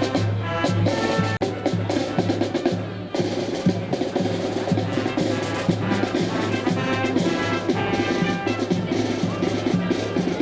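High school brass band playing a march while marching in a parade, with brass and woodwinds over a steady drum beat.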